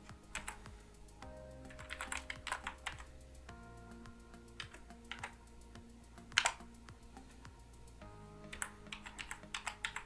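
Keys on a computer keyboard tapped in short irregular runs, typing in a password, with one louder keystroke about six and a half seconds in.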